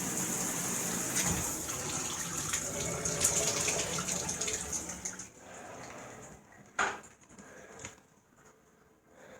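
Shower head spray running as a steady hiss of falling water that falls away about five seconds in, followed by a single short knock.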